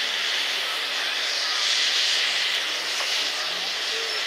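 Steam hissing steadily from the ČSD class 354.1 steam tank locomotive 354.1217, a rushing hiss that swells about halfway through.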